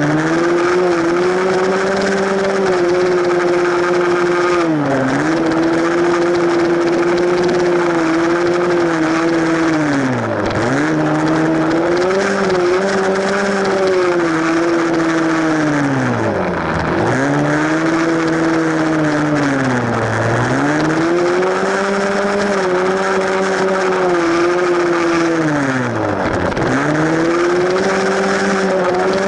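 Small four-stroke single-cylinder dirt bike engine running under riding load, heard from the rider's seat. Its revs hold fairly steady, then drop sharply about five times, every five or six seconds, and climb back up each time as the throttle is reopened.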